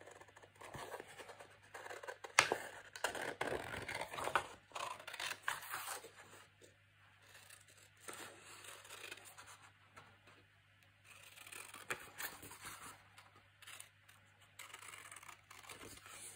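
Scissors snipping through a printed paper sheet: a run of short cuts with the paper rustling as it is turned, busiest in the first few seconds and then in quieter, spaced-out bursts.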